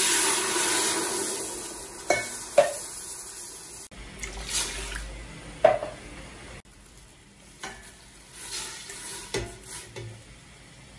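Coconut milk poured from a can into a stainless steel pot: a loud splashing pour that fades over the first two seconds. After it come a few sharp knocks and clinks of metal on the pot.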